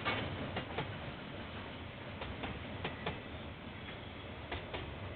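Train wheels clicking over rail joints as a train rolls past slowly. The clicks come mostly in close pairs a second or so apart, over a steady noise, heard through a security camera's microphone.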